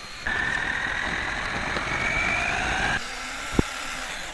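Brushless electric motor of a homemade RC buggy whining at speed, its pitch rising slowly over a loud rushing noise. The sound cuts off sharply just under three seconds in, and a single click follows.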